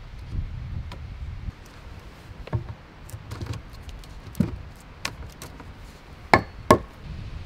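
Axe knocking a round log rung into place against an upright pole: a series of sharp wooden knocks, the two loudest a third of a second apart near the end.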